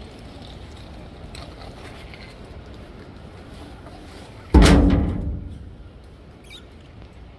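The hinged door of a green metal bin bangs shut once, about halfway through, with a loud clang that rings on for about a second.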